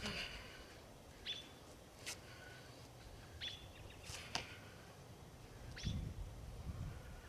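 A bird gives short, falling chirps about every two seconds, with a few sharp clicks between the calls.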